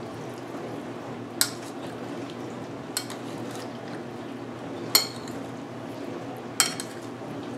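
A metal spoon clinking against a bowl four times, about every one and a half seconds, as raw chicken pieces are stirred in a wet vinegar-and-oil marinade, over a steady low background hum.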